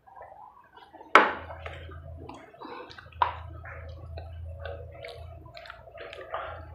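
Close-miked mouth sounds of eating: wet chewing and swallowing, many small smacks and crackles. Two sharp knocks about a second and about three seconds in, drinking glasses being set down on the table.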